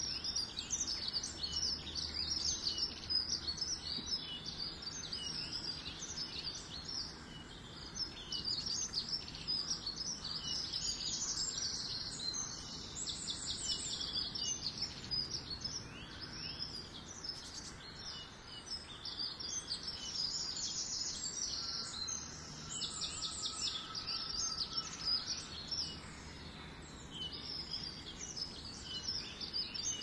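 Many small garden songbirds singing and calling at once: a dense chorus of high chirps, trills and whistles that never stops. A steady low rumble of background noise lies underneath.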